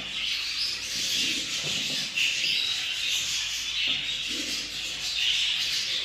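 Budgerigar chattering and squawking without a break, a high, scratchy chatter that swells and fades.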